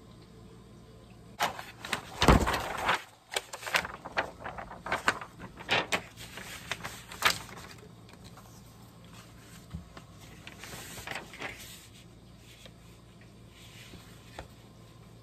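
Sheets of stiff white card being handled, slid and laid down on a table by hand: a run of rustles, scrapes and taps, with a loud bump about two seconds in, then a few softer rustles later on.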